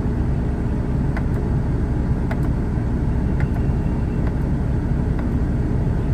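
BMW 335i turbocharged inline-six idling steadily in drive, with a few faint clicks over it.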